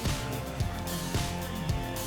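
Background music with a steady beat, about two beats a second, and plucked guitar.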